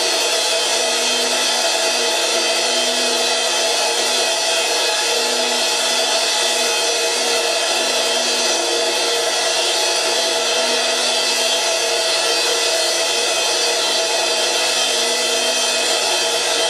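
Cymbal on a stand kept ringing continuously as a dense, steady metallic drone of many overtones, without separate strikes.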